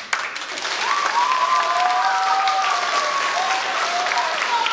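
Crowd of schoolchildren applauding in a gym, with voices calling out over the clapping from about a second in.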